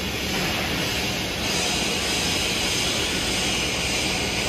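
TIG welding arc on a stainless steel pipe joint during the final capping pass: a steady hiss that gets brighter about a second and a half in, over the drone of the workshop.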